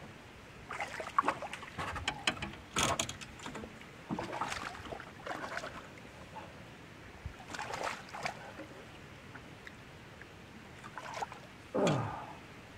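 Water splashing and sloshing in short, irregular bursts at the side of a bass boat as a hooked fish is played at the surface and landed by hand, with a short low sound near the end.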